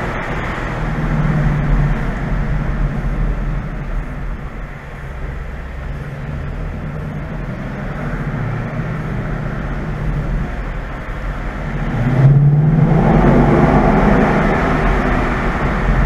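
2015 Mustang GT's V8 exhaust as the car rolls slowly through a concrete parking garage, a low steady burble. About twelve seconds in it turns sharply louder as the throttle opens, and stays loud.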